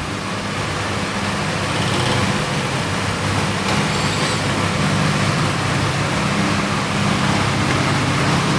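Steady background hiss with a low, even electrical hum and no distinct events.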